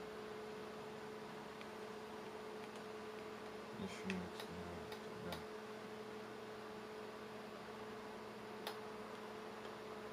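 Faint steady hum with a constant tone from a running S1-54 valve oscilloscope, with a few clicks about four to five seconds in and one more near the end.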